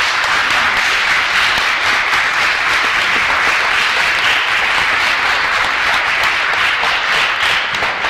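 Audience applauding: a steady, dense round of clapping from many hands.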